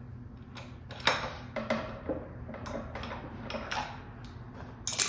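Scattered metallic clicks and clinks of a hand wrench working on an engine's camshaft cap bolts as they are gone back over and checked for torque. The sharpest clicks come about a second in and near the end.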